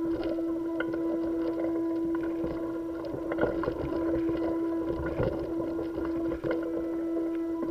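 Steady mechanical hum built around one constant mid-pitched tone, with fainter higher tones and a low rumble beneath. Scattered soft clicks and knocks sound every second or so.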